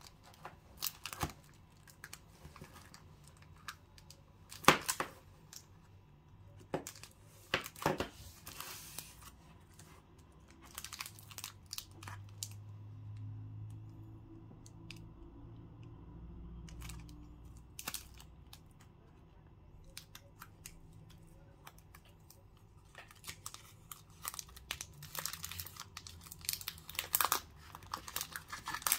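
Plastic candy-bar wrappers crinkling as they are handled, in short crackling spells with quieter stretches between. Near the end the crinkling grows dense and the wrapper of a KitKat Apple Pie bar is torn open.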